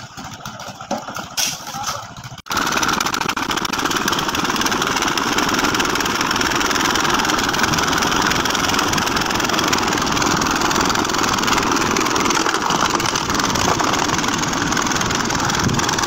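A drum concrete mixer's small diesel engine running steadily, starting suddenly about two and a half seconds in. Before it there are a few faint knocks.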